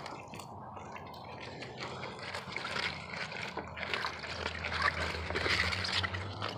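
Goats biting and chewing wet, juicy greens: a dense run of crunching and crackling bites that grows louder about two seconds in.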